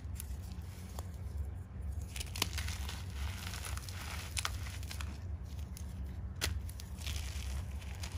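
Crunchy chalk being crunched and crumbled close to the microphone: a crackling, crumbling texture broken by several sharp snaps, over a steady low hum.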